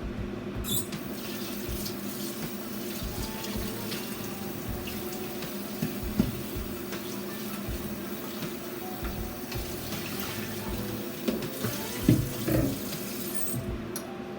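Kitchen tap running into the sink, turned on just under a second in and shut off near the end, with a few knocks around the sink.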